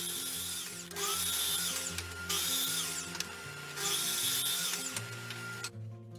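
Mitre saw running and cutting through a thin strip of wood in four surges, a steady motor whine under them, stopping suddenly about half a second before the end. Background music underneath.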